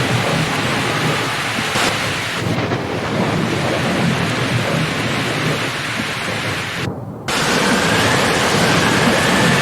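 Steady rain falling in a thunderstorm, with thunder rumbling underneath. The sound dips briefly about seven seconds in, then returns.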